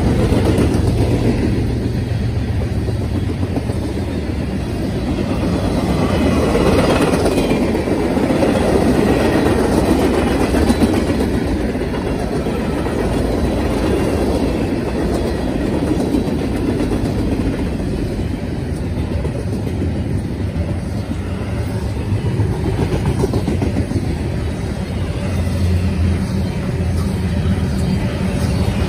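Freight train cars rolling past, a steady rumble and clatter of steel wheels on rail from covered hoppers, a gondola and double-stack container cars.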